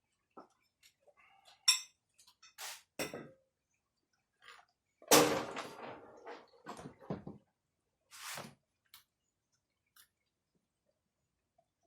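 Metal tools and small parts clinking and knocking as a brush cutter is taken apart by hand: scattered clicks, with the loudest clatter about five seconds in and a few more knocks after it.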